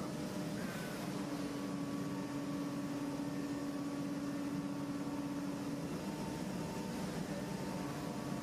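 CNC machining center's spindle running a carbide end mill that finish-mills a bore in an aluminium block: a steady mechanical hum with one constant low tone and fainter higher tones.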